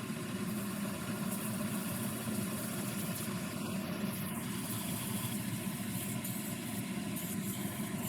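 Spindle sander running with a steady motor hum.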